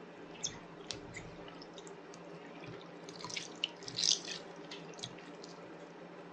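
Homemade slime being squished and pulled in the hands: scattered wet clicks and squelches, loudest about four seconds in.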